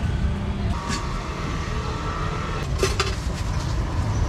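Metal tongs clinking against a steel pot, a few short sharp clicks, over a steady low rumble of street traffic.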